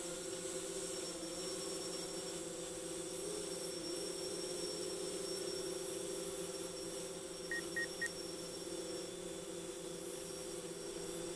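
DJI quadcopter drone hovering, its propellers making a steady buzzing hum whose pitch wavers slightly as the motors hold position. Three short, quick high beeps sound about two-thirds of the way through.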